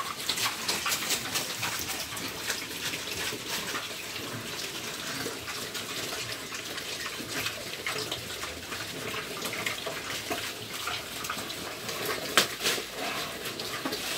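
Several pigs chewing and rooting through yellowed breadfruit leaves, a continuous run of quick wet crunches, smacks and leaf rustles, with one sharper snap about twelve seconds in.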